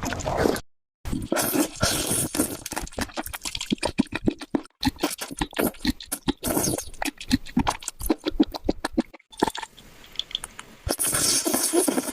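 Close-up chewing and smacking of food: a fast, irregular run of short wet clicks and crunches, broken by two brief silences.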